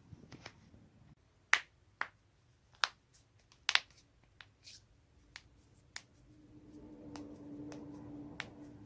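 A person's own joints cracking: a series of sharp, separate pops, about nine in all. The loudest come in the first half, including a quick double crack near the middle.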